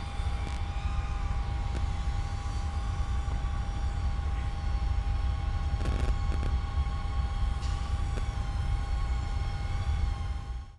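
FPV quadcopter's motors whining steadily from a distance, with a few fainter tones wavering as the throttle changes. A low rumble of wind on the microphone runs underneath.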